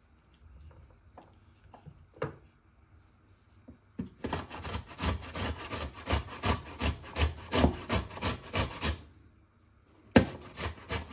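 Tomato being grated by hand on the coarse side of a grater: quick rasping strokes, about four a second. The strokes start about four seconds in after a few light knocks, break off for a second near the end, then resume.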